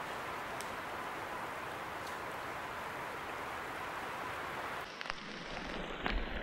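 A small woodland stream running over a little cascade, a steady watery hiss. About five seconds in it cuts off, giving way to a low wind rumble on the microphone and a couple of light knocks.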